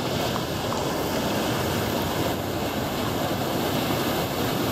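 Steady rushing roar of waterfall water churning around the swimmer, an even wash of sound without a break.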